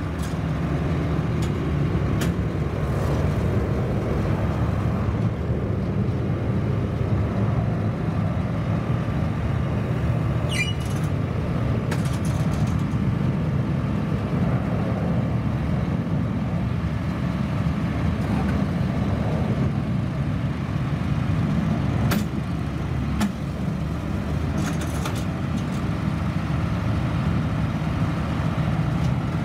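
Diesel engines of a farm tractor and a CAT TH83 telehandler running steadily at a low, even drone, with a few short clicks about three-quarters of the way through.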